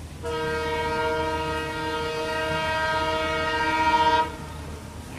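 Indian Railways diesel locomotive's air horn sounding one long blast of about four seconds. It is a steady chord of several tones that starts and stops sharply and swells a little just before it cuts off.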